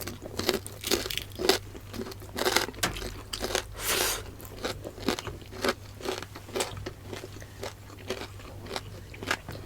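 Close-miked eating sounds: a person biting and chewing food, with irregular wet mouth smacks and soft crunches, several a second.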